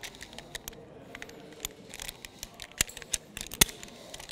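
Metal rope-access hardware (carabiners and rope devices) clicking and clinking as it is handled on the rope, with two sharper snaps in the second half.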